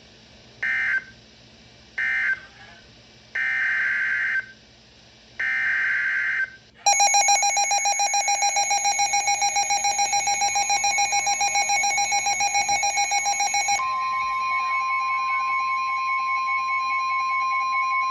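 Emergency Alert System signals between two warnings: three short digital data bursts (the end-of-message code), then two longer data bursts (the header of the next alert). About seven seconds in, a loud, harsh, rapidly pulsing attention tone starts, and about halfway through a steady single tone joins it while the pulsing carries on more faintly.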